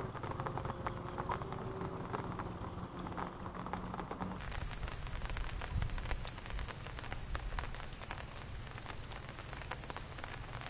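Light rain pattering: a steady, dense crackle of small drops.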